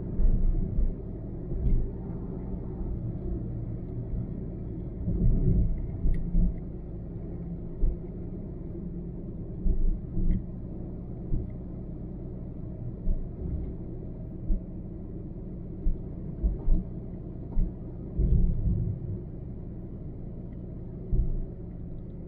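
Steady low road rumble from a car cruising on a highway, with frequent short, irregular low thumps.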